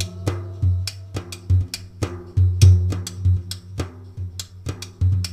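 Instrumental break in a Punjabi devotional song: a steady drum rhythm of about three strokes a second over a sustained low bass note, with no singing.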